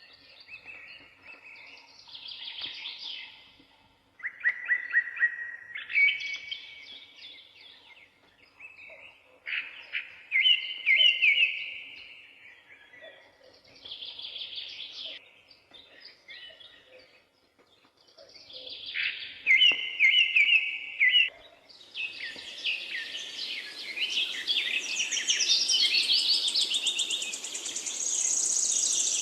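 Songbirds singing: short phrases of rapid trilled notes come every few seconds with quiet gaps between. About two-thirds of the way through, several birds overlap in a denser, higher chorus over a steady background noise.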